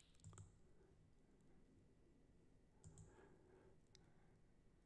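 Near silence with a few faint computer mouse clicks: a couple near the start, more about three seconds in and one about four seconds in.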